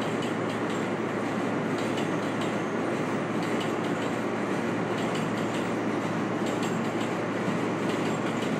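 New York City Subway train running on the rails: a steady rumble of steel wheels with a low hum and light, irregular clicks over the rail joints.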